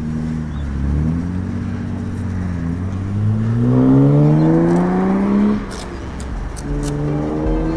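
Aprilia Tuono V4 1100's V4 engine pulling away under throttle. The revs climb steadily for a couple of seconds, drop off sharply about five and a half seconds in, then pick up again at a steadier pitch.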